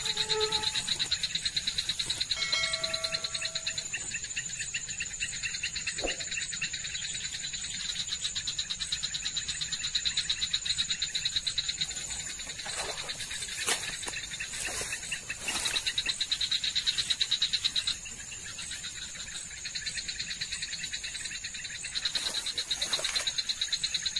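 Night-time chorus of calling insects and frogs: a high, fast-pulsing trill that swells and fades every few seconds, with a few short calls in the first seconds. A few soft knocks come through now and then.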